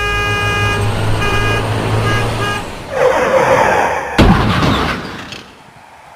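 A horn-like tone blaring in several pulses over a low engine rumble, then a rush of noise and a sudden loud crash with a low boom that fades away.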